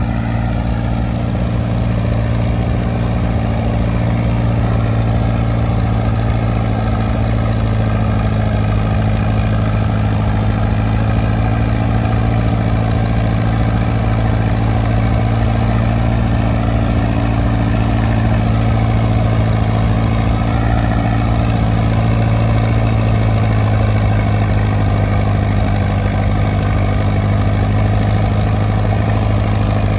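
Small vintage Case tractor's engine running steadily under load as it pulls a tractor-pull sled, its pitch holding nearly constant.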